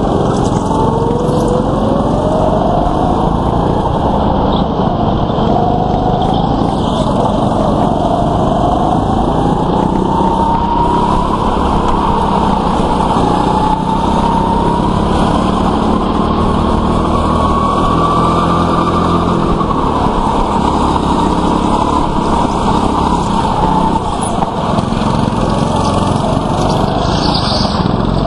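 Small go-kart engines running hard, heard from the driver's seat of a kart on a racing lap. The engine note rises and falls with speed through the corners, climbing gradually for much of the time and then dropping back.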